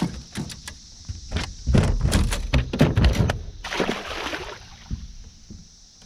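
Knocks and thumps on the deck and hull of a small aluminum boat as gear is handled and set down, busiest about two to three seconds in, followed by a short rustle just before four seconds. A steady faint high hiss runs underneath.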